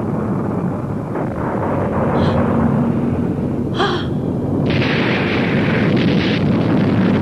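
Cartoon sound effect of a volcano rumbling before an eruption: a steady deep rumble, with a hiss laid over it for about two seconds past the middle.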